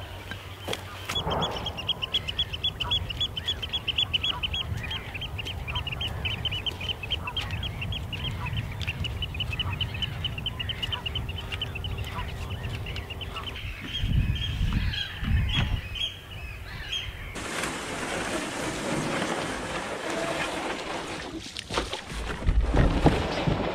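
Waterbirds calling in a long run of rapid, high chattering calls, then a rushing noise of wind and water from about two-thirds of the way through.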